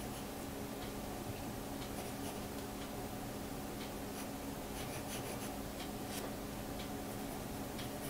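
Pencil scratching across a sheet of paper in short, irregular strokes while sketching, over a steady low hum.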